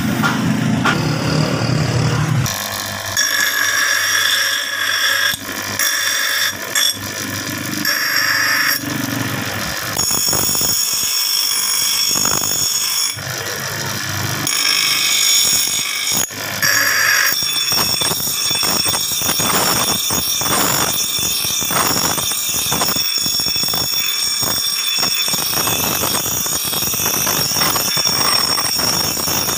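Electric bench grinder's stone wheel grinding a steel axe head: a steady high-pitched squeal with uneven rasping as the blade is pressed against the spinning wheel. The sound changes suddenly several times in the first half, then settles into continuous grinding for the second half.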